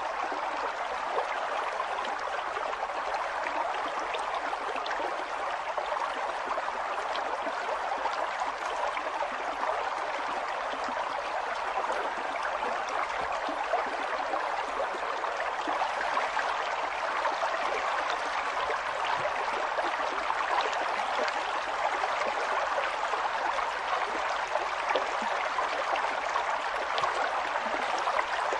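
River water flowing and gurgling steadily, a continuous rushing with small splashes over it.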